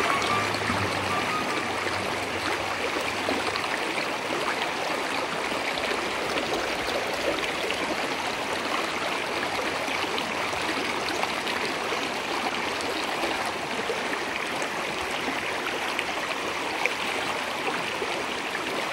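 Shallow, rocky river running over stones: a steady rush of flowing water.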